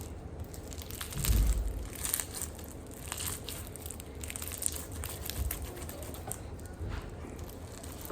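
Bingsu clear slime being squished and folded by hand, its bingsu beads giving many small crunchy crackles, with a low thump about a second in.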